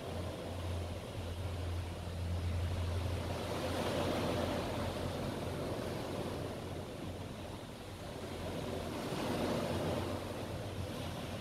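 Seaside wind and surf ambience, a steady wash of noise that swells and eases, with a low hum underneath that is strongest in the first few seconds.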